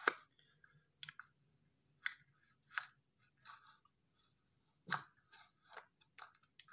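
Faint, irregular small clicks and taps, about a dozen over several seconds, with the loudest at the very start and about five seconds in, over a faint steady high-pitched whine.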